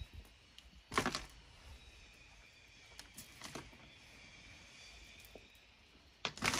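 Clumps of wet sod and dirt dropped by hand into a plastic dump cart, landing with dull thuds: one about a second in, a couple of softer ones around three seconds in, and a louder double thud near the end.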